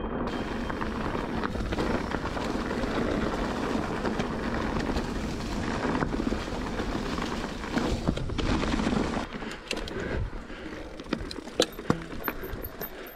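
Giant Trance E+2 electric mountain bike descending a rough enduro trail, heard from a bike-mounted action camera. A steady rumble of tyres on rough ground and wind noise gives way, about nine seconds in, to a run of sharp clicks and knocks from the bike jolting over the terrain.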